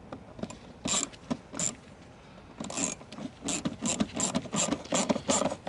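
Ratchet wrench with a 7 mm socket clicking in short bursts as a bolt is tightened. The bursts are scattered at first, then come in a steady rhythm of about two to three a second from around halfway in.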